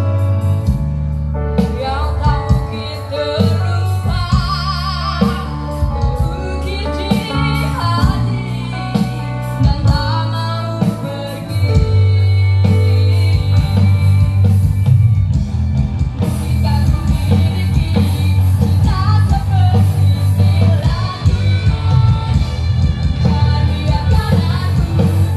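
A song with singing, played loud through an SJS Audio outdoor PA sound system with four subwoofer boxes, the bass heavy and steady. About twelve seconds in the bass thickens and the overall level steps up.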